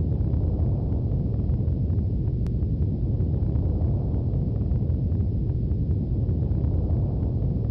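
Steady low rumbling noise that holds unchanged throughout, with one faint click about two and a half seconds in.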